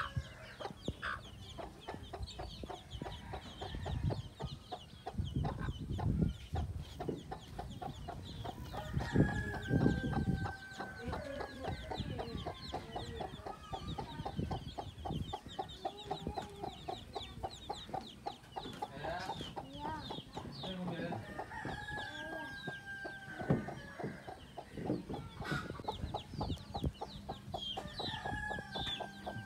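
A brood of chicks peeping continuously in quick high chirps over a hen's steady clucking, with a few longer drawn-out calls. A low rumble comes and goes in the first third, loudest about nine seconds in.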